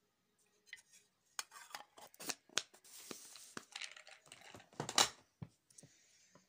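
Small hard objects being handled and knocked together close to the microphone: a run of irregular clicks and clatters with some rustling, the sharpest knock about five seconds in.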